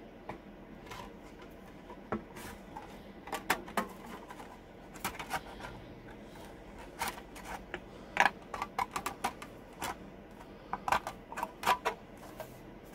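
Hand tin snips cutting a slit into a thin sheet-metal disc: an irregular run of sharp snipping clicks as the blades close, bite by bite.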